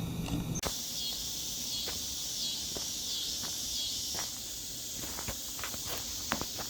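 Outdoor insect chorus: a steady, high, gently pulsing drone that starts abruptly about half a second in, with a few soft clicks scattered through it.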